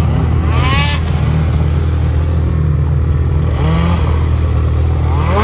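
Snowmobile engines: one idles close by with a steady low hum, while another revs in rising surges, about three times, as it pulls away through deep snow.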